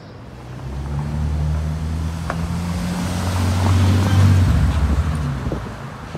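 Bentley Continental GT driving past at low speed, its engine note growing louder as it passes close about four seconds in, then fading as it pulls away.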